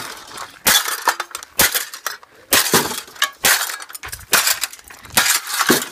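Refrigerator being smashed with hand-swung blows: about seven hard strikes, roughly one a second, each with a crack of breaking material and a clinking ring.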